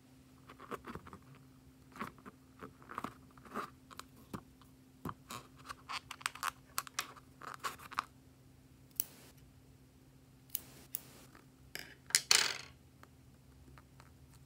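A slime-filled rubber balloon being handled and squeezed, giving a run of small crackles and clicks; scissors snip the balloon's neck a few times past the middle, and near the end the slime squirts out of the opening with a short, loud sputter.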